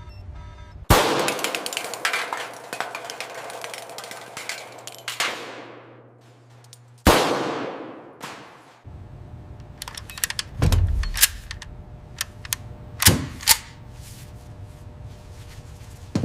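AK-47 rifle firing: a loud burst about a second in that rings away over several seconds, a single shot near seven seconds with a long echoing tail, a quick string of shots around ten seconds, and two sharp shots close together near thirteen seconds.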